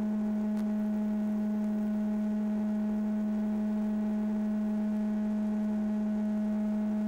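Steady electrical hum at one low pitch with a fainter higher tone above it, holding level and unchanging.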